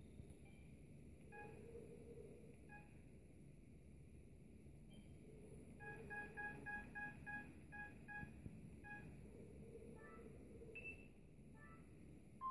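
Faint short electronic beeps from a mobile phone: two spaced beeps early on, then a quick even run of about nine beeps around the middle, then a few beeps of other pitches near the end.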